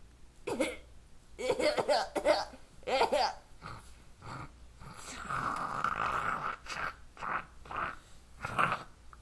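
A person acting sick into a tissue, making short coughs and groans, with a longer breathy, hacking noise about halfway through.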